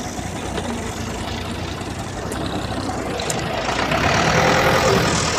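A tractor engine running steadily, growing louder a few seconds in.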